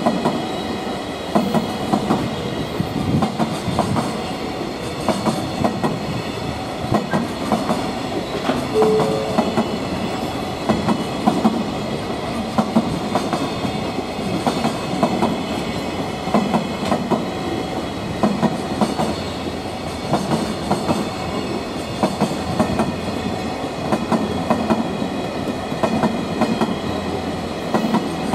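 Long container freight train passing at speed, its wagons' wheels clattering over rail joints in a steady, repeating clickety-clack.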